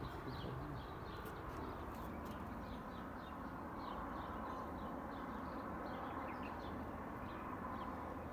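Small birds chirping over and over, short high calls several a second, over a steady background hum.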